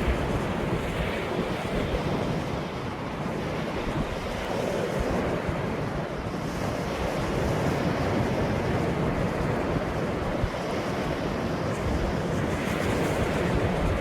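Ocean waves washing onto the shore, the surf swelling and easing every few seconds, with wind buffeting the microphone.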